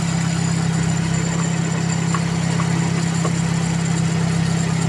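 Toyota Corolla's 2E four-cylinder engine idling steadily.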